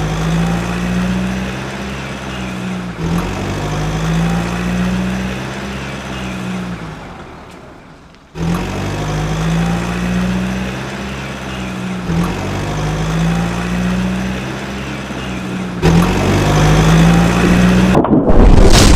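Cartoon truck engine sound effect: a low engine drone looped in near-identical stretches of three to four seconds. It fades out and starts again about eight seconds in. Just before the end a loud rumbling crash sets in.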